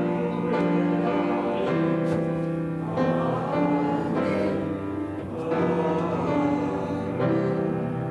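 Slow instrumental church music: sustained chords on a keyboard instrument, changing every second or two and easing off near the end.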